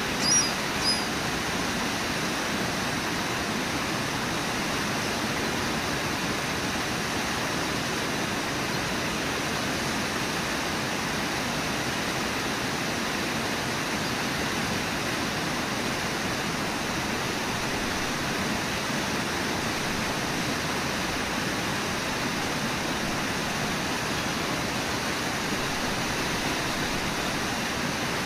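Rushing white water of the Brooks River pouring over Brooks Falls and through the rapids below, a steady, even roar. Two short high chirps sound in the first second.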